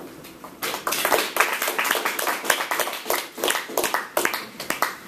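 A small audience applauding: many separate hand claps that start about half a second in and stop shortly before the end.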